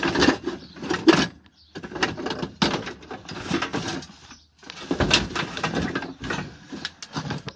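Hand tools, cables and metal gear clattering, knocking and scraping against each other as they are pushed aside in a crowded tool store. It comes as a run of irregular clattering bursts with a couple of short pauses.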